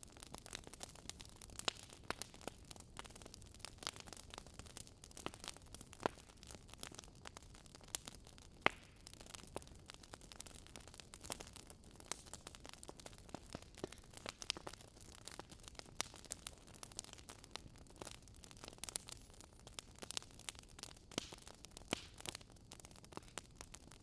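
Faint wood fire crackling: irregular small pops and snaps over a soft hiss, with one sharper pop about nine seconds in.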